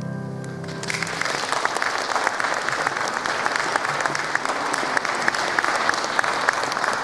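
The final notes of a song sung with piano accompaniment die away. About a second in, an audience starts applauding with steady clapping.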